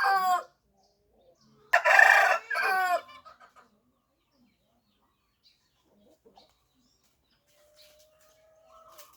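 Rooster crowing: the end of one crow right at the start, then a second loud crow about two seconds in, lasting about a second and ending on falling notes. Only faint scattered sounds follow.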